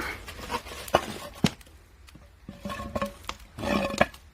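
Split firewood knocking and clattering as it is handled and tossed into a wood-fired kiln's stoking port, with two sharp knocks about a second and a second and a half in and a burst of scraping and clatter near the end.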